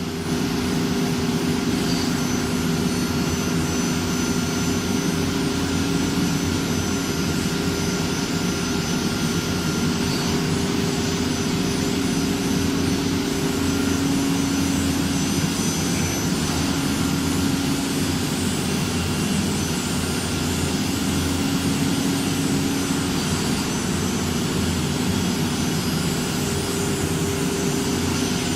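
Automatic-tool-changer CNC router running, a loud steady machine drone with a constant hum.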